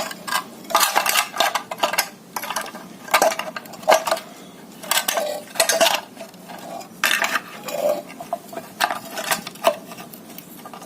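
Irregular metallic clinks and rattles of the gear-shift linkage's metal parts being handled as the shift rod is worked out, with about a dozen sharp knocks spread across the stretch.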